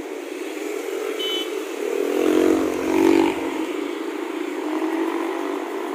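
Road traffic of cars and motorcycles passing steadily. One vehicle's engine swells louder as it passes close, about two to three seconds in.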